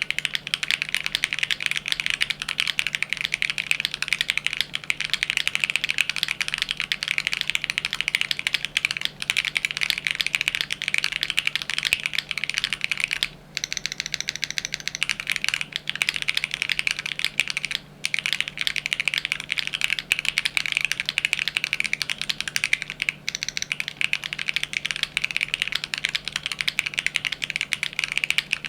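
Fast, continuous typing on a Geonworks Frog mini leggera keyboard with factory-lubed Geon Raw HE Hall-effect switches on a carbon fiber plate and GMK ABS keycaps. The keystrokes run densely, with a few brief pauses, about 13, 18 and 23 seconds in.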